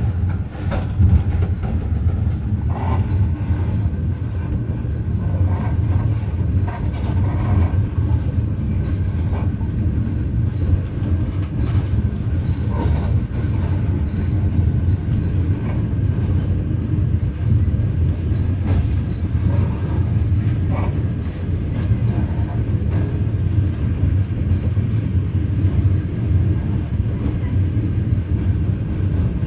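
Train running along the track, heard from on board: a steady low rumble with scattered clicks and clatters.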